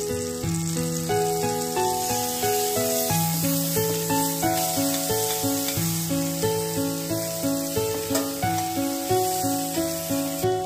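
Butter sizzling in a frying pan as ginger-garlic paste is stirred in, under background instrumental music with a steady beat.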